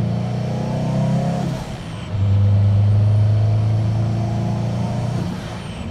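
Big-turbo Subaru WRX STI flat-four engine heard from inside the cabin while driving. It climbs in pitch, drops at a gear change about a second and a half in, then pulls loud and steady again before easing off near the end.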